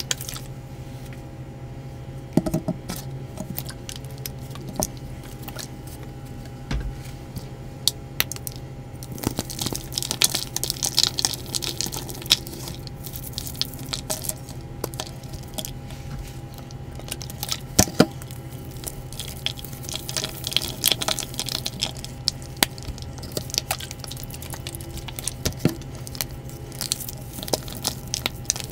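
Hands crushing a block of red-dyed gym chalk that is still damp: an irregular run of crunches, crackles and soft squishes as it breaks into crumbles. It is denser in two stretches, about a third and two thirds of the way in. A steady low hum runs under it.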